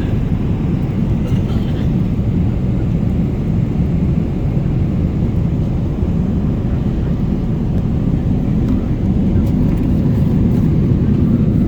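Steady low rumbling of a moving vehicle, heard from on board, growing slightly louder near the end.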